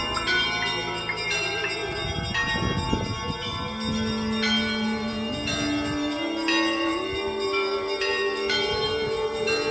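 Orthodox church bells ringing: many bells struck in quick succession, each ringing on over the next. A held lower tone steps upward in pitch beneath them.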